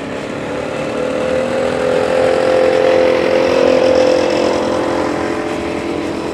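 A small engine running at a steady speed with an even hum, growing louder to a peak about halfway through and then easing off.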